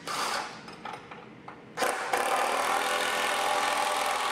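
Cordless drill driving a bolt through a cedar log leg and top rail: a brief spin at the start, then a steady run of about three seconds beginning near the halfway point.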